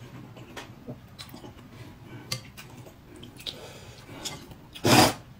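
Person eating boiled eggs: soft chewing and small clicks of tableware, then a short loud breathy burst near the end.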